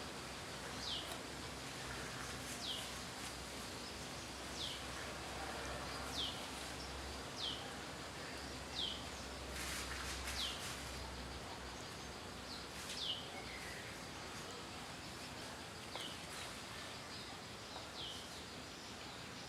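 A bird calling: a short, high whistled note that falls in pitch, repeated every one to two seconds over a steady outdoor background hiss.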